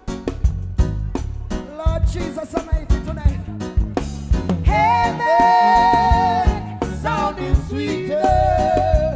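Live reggae band playing, with a drum kit struck close by: sticks on drums and cymbals over a heavy bass line. A held, wavering melody line comes in about five seconds in and again near the end.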